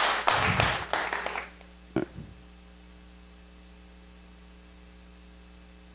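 Audience clapping and reacting, dying away about a second and a half in, then a steady electrical hum from the hall's sound system with one short vocal sound about two seconds in.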